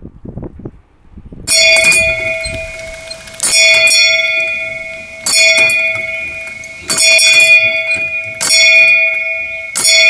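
Brass bell in a swinging yoke, rung by a pull rope, clanging six times about every one and a half to two seconds, each stroke ringing on into the next. It begins about a second and a half in, after a short stretch of wind noise on the microphone.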